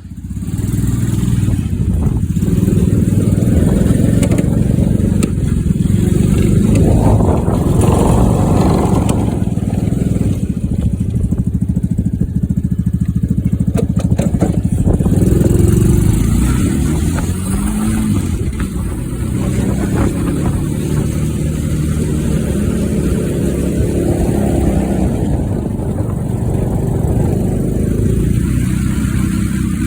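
Mini Jeep tug's small gasoline engine running under way, its note swelling and falling back a couple of times as it is throttled.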